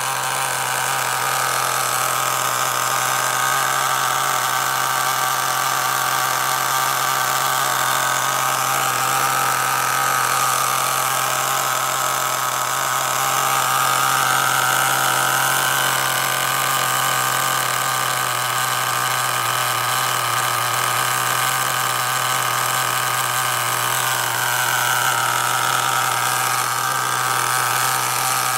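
Small glow-plug nitro engine of an HPI Firestorm RC car running at a low tickover while still cold, a steady note whose pitch drifts up and down every few seconds.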